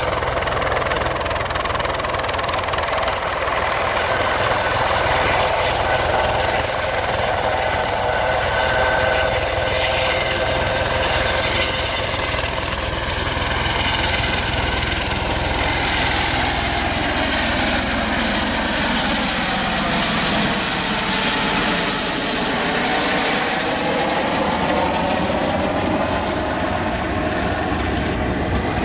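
Airbus EC130B4 helicopter hovering and lifting off, its single turboshaft engine and rotors running steadily. A whining tone dips in pitch about two-thirds of the way through and then climbs back as the helicopter turns and climbs away.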